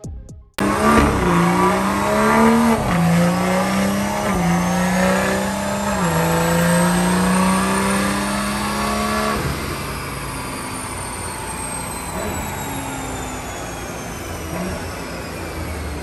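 BMW B58 3.0-litre turbocharged inline-six, breathing through a catless downpipe and stock exhaust, making a wide-open dyno pull. It climbs in pitch with a few brief drops, a high whine rising with it. About nine seconds in it lets off, and the whine falls away while the engine runs on more quietly.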